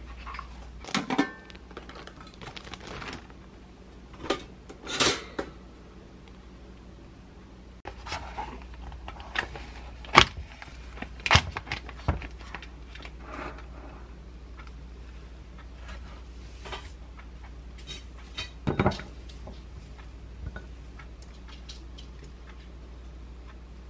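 Kitchen handling sounds: scattered knocks and clinks as a plastic plant pot is set down on a counter, a plastic yogurt tub is opened and spooned into a ceramic bowl, and a glass jar is picked up. The sharpest clicks come about ten to twelve seconds in.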